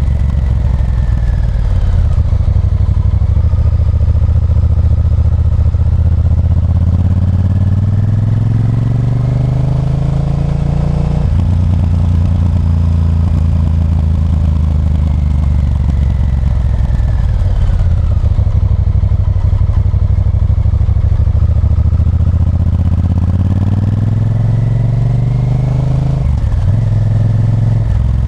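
Honda Varadero 1000's 996 cc V-twin engine pulling the motorcycle along. The revs climb steadily through a gear and drop at a shift about eleven seconds in, then climb again and drop at another shift near the end.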